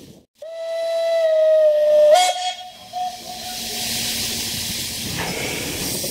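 Steam locomotive whistle blown in one long blast that steps up slightly in pitch about two seconds in and fades away soon after. A steady hiss of steam with low rumble follows.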